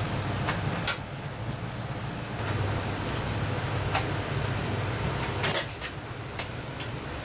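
A steady low kitchen hum with scattered light clicks and knocks of cookware, and a short clatter about five and a half seconds in.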